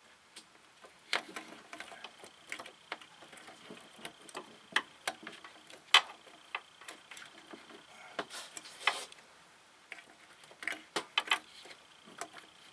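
Irregular clicks, clinks and light knocks of hand tools and metal parts being handled while working around an engine, with a short scrape a little before the middle of the second half.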